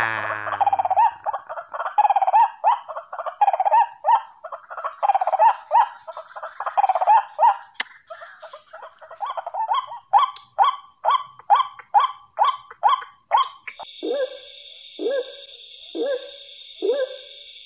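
White-breasted waterhen (ruak-ruak) calls repeated over and over, building into a fast, even run of about three short calls a second. About fourteen seconds in they change to lower calls that drop in pitch, about every three quarters of a second. A steady high hiss runs behind them.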